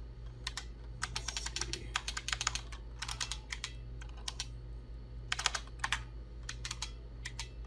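Keys being typed on a computer keyboard in short, irregular bursts of clicks, over a steady low hum.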